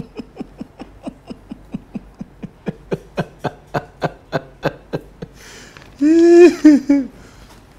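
Stifled giggling: a long run of short laughs, about three a second, fading away. About six seconds in comes a louder, drawn-out vocal sound with a paper rustle.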